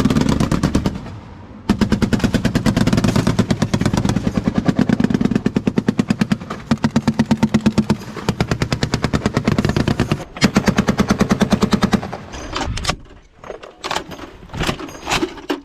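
Machine-gun fire in long, rapid bursts, one after another with short breaks, then a few scattered single shots near the end.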